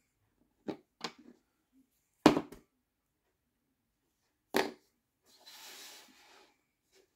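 Four short knocks of a plastic sand mould against a tabletop, the loudest about two seconds in, then a soft rustle of hands gathering kinetic sand on the table.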